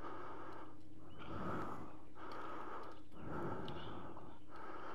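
A person breathing heavily close to the microphone, each breath swelling and fading about once a second, over a steady low hum.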